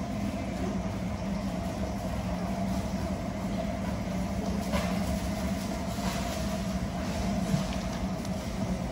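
Steady mechanical hum of indoor machinery: a low drone with a fainter higher tone above it, and a couple of faint knocks about halfway through and near the end.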